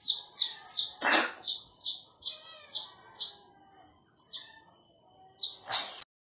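Rapid, repeated high-pitched bird chirps, about four a second, that slow and stop partway through. A few more come near the end, with a brief rushing noise about a second in and another near the end.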